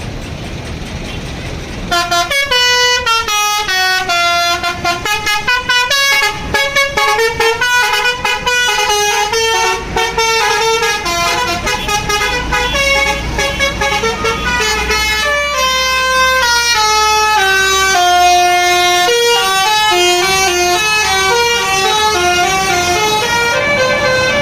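Telolet basuri bus horn playing a melody, starting about two seconds in: quick stepping notes at first, then longer held notes.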